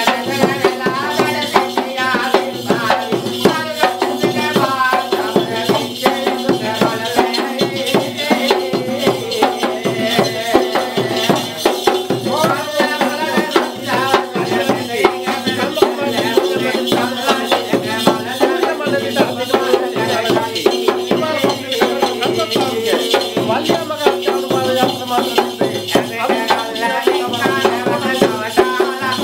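A double-headed barrel drum beaten rapidly by hand, with a continuous shaken rattle. This is ritual folk drumming that goes on without a break.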